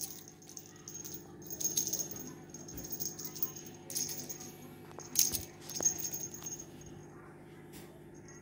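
Beaded cat wand toy rattling and jingling in short bursts as it is swung and batted, with a few sharp taps, the loudest about five and six seconds in. A low steady hum runs underneath.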